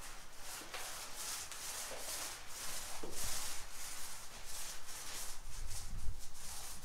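Paint roller on an extension pole rolled up and down a rough concrete wall, a quick run of scratchy swishes with each stroke as the first coat of white paint goes on.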